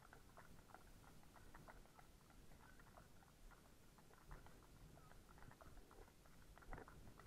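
Faint, irregular clip-clop of horses' shod hooves walking on wet tarmac, several small clicks a second.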